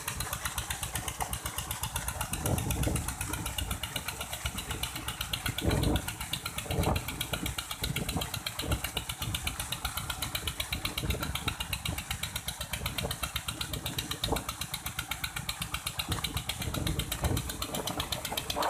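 Diesel engine running steadily with a fast, even beat while it drives a water pump, over the rushing of water pouring from the outlet pipe. A few louder low thumps stand out now and then.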